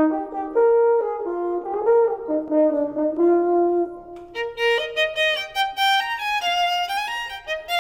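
A French horn plays a short melody; a little over four seconds in, a violin takes over with a melody of its own.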